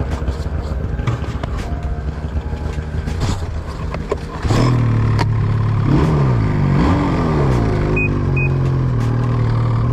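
1997 Arctic Cat ZR600 snowmobile's two-stroke twin engine running as it is ridden. It is quieter at first, gets louder about four and a half seconds in, swings up and down in pitch a few times as the throttle is worked, then holds steady. Two short high beeps come near the end.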